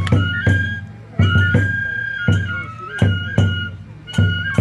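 Onikenbai dance music: a Japanese transverse bamboo flute plays a held melody that steps between a few notes, over heavy taiko drum strikes, each with a bright clash from the hand cymbals, about every half second.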